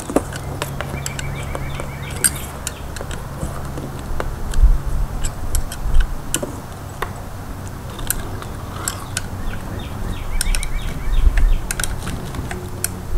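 Steel 13 mm wrenches clicking and clinking on a bolt and nut as they are snugged down through the ceiling fan's downrod bracket, with short runs of quick ticks about a second in and again near the end. A steady low hum runs underneath.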